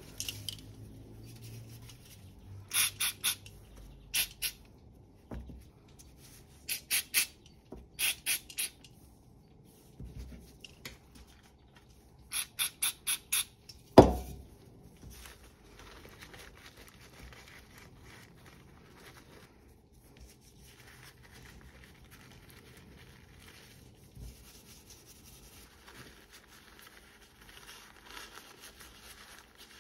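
Aerosol engine cleaner sprayed in short quick bursts onto small secateur parts, in groups of three to five hisses. About halfway through there is one loud sharp knock with a brief ring, followed by soft paper-towel rustling as the parts are wiped.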